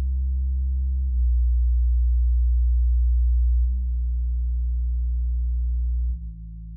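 Small desktop studio monitor playing low bass test tones: steady low hums with fainter tones stacked above them. The tone steps to a new, slightly louder one about a second in and changes again near the end, where it drops quieter.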